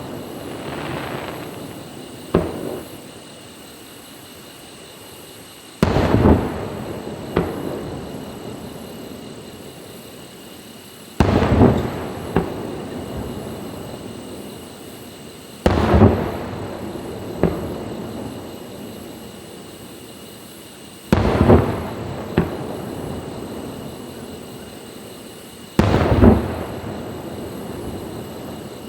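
Aerial firework shells bursting one after another, about every five seconds. Each is a sharp bang followed by a smaller crack about a second later and a rumble that fades slowly before the next shell.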